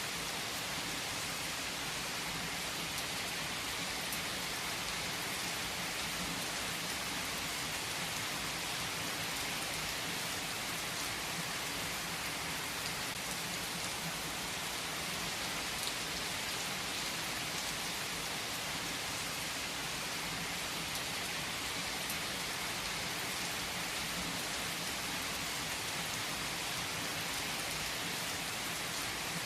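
Steady rain falling: a dense, even hiss that holds constant, with scattered faint drop ticks.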